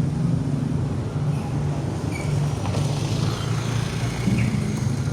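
Motor vehicle engines running with a steady low rumble and a broad hiss of traffic.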